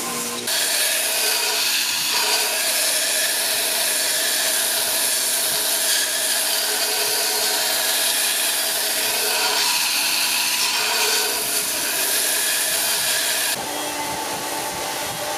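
Belt grinder grinding a 5160 high-carbon steel knife blade: a steady, loud rasping hiss of the abrasive belt on steel. At about 13.5 s it changes abruptly to a 4x36 belt sander grinding the blade, quieter, with a steady motor hum under the hiss.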